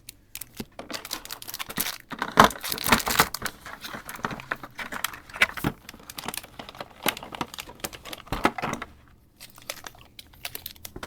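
Plastic wrapping crinkling and cardboard and card-stock contents of a Pokémon TCG Elite Trainer Box being handled and pulled out, a busy run of irregular rustles and sharp clicks, loudest a couple of seconds in.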